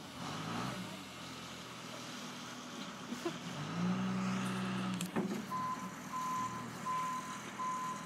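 Bulldozer engine running, swelling under load about four seconds in, with a sharp knock; then its reversing alarm starts beeping steadily, about two beeps a second.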